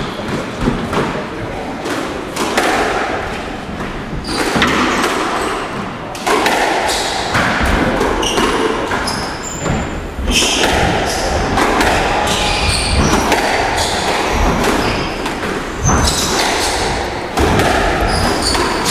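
Squash rally: the ball is struck by rackets and thuds against the court walls in a run of sharp knocks, with short high squeaks scattered through it.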